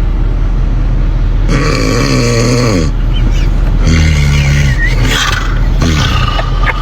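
A person snoring loudly, two long snores that each slide down in pitch, over a constant low rumble.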